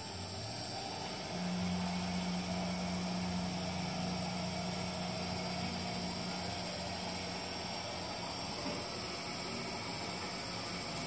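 Stretch wrapping machine's electric drive motors running steadily, a steady low hum with mechanical noise. The hum comes in about a second in.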